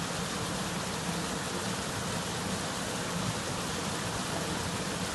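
Steady rush of water from a cascade flowing down a rocky channel, an even hiss without breaks.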